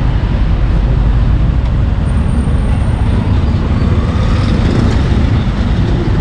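Steady street traffic noise, with motorbike engines running close by and a constant low rumble.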